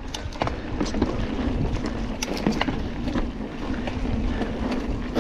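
Mountain bike rolling over a rough dirt trail: a steady rumble of tyre noise with frequent rattling clicks and knocks, and wind rushing over the microphone.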